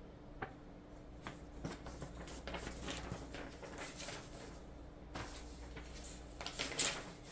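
Faint rustling and light taps of paper sheets being handled, set down and unfolded, with a few sharper crinkles near the end, over a steady low hum.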